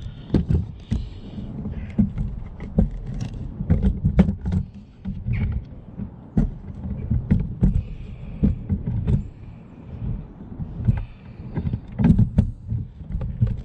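Irregular clicks and knocks over an uneven low rumble: handling noise while a rear number plate lamp and its holder are worked by hand.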